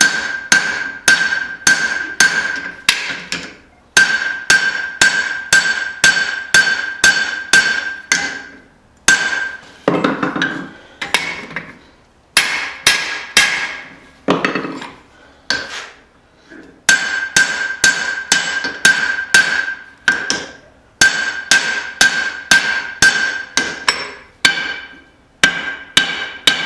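Hand hammer forging a hot steel hammer head on an anvil, working the area around its eye, at about two blows a second in runs broken by short pauses. The anvil rings between blows.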